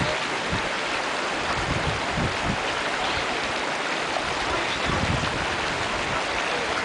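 Steady rushing of mountain river water, an even hiss at a constant level, with occasional low rumbles underneath.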